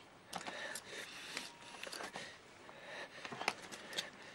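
A man breathing hard, winded from a fistfight, with scattered light knocks and clicks in a small room.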